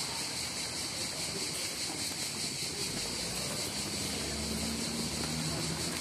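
Steady outdoor street noise with a low engine hum that grows stronger in the second half.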